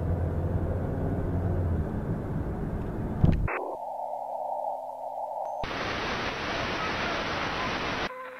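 Analog video-tape static. A rushing hiss over a low hum narrows to a thinner band of hiss about three and a half seconds in. Then a loud burst of white-noise static cuts in and stops abruptly near the end.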